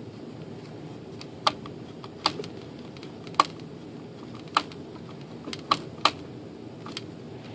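About seven sharp clicks and taps, spaced unevenly, as a small part is worked into the servo pocket of a fiberglass model glider fuselage to hold the servo in place, over a steady low hum.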